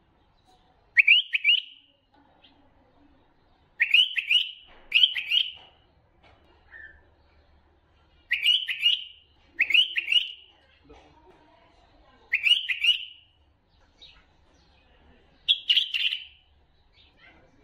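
Bulbul singing: short phrases of quick, clear notes, about seven of them, each under a second, spaced a few seconds apart.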